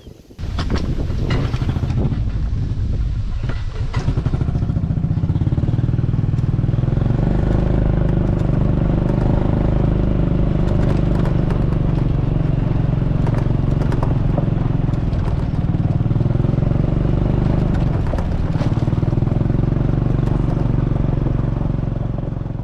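A small gasoline engine comes in suddenly about half a second in and runs steadily and loudly, its pitch shifting slightly now and then, like a farm utility cart being driven.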